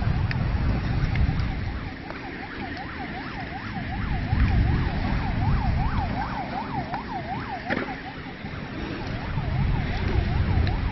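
Emergency vehicle siren in a rapid yelp, its pitch sweeping up and down two to three times a second, over a loud low rumble.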